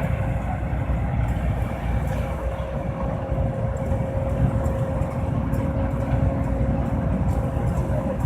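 John Deere C670 combine harvester running steadily: a continuous low engine and machinery rumble with a faint steady whine.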